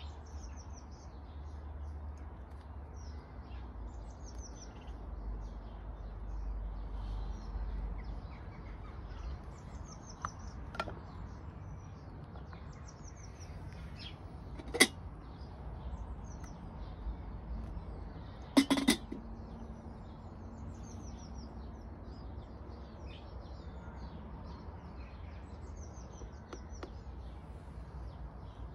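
Small birds chirping and singing over a steady low rumble. About halfway through comes a single sharp knock, and a few seconds later a short double clatter.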